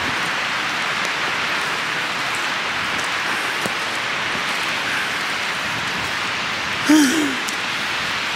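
Steady rushing hiss with no single clear source. A person's voice makes a short wavering sound about seven seconds in.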